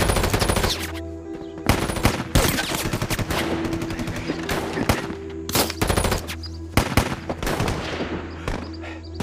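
Gunfire: irregular single shots and short rapid bursts, dense in the first second and then scattered, over background music with a low sustained drone.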